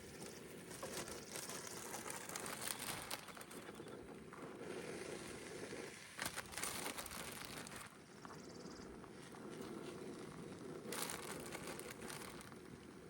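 Irregular rustling and crinkling with scattered clicks, unsteady and with no rhythm.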